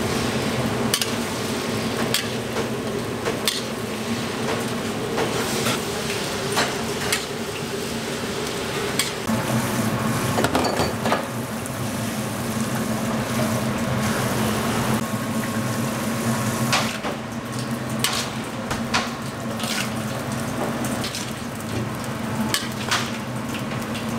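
Green beans stir-frying in a large steel wok: a steady sizzle over a low hum, with irregular clinks and scrapes of the metal ladle against the wok.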